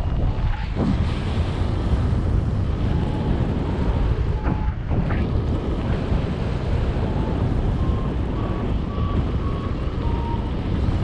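Wind buffeting the microphone in paraglider flight: a steady, loud low rumble. Over it are a variometer's faint short beeps, about one a second at times, stepping up slightly in pitch about two-thirds of the way through.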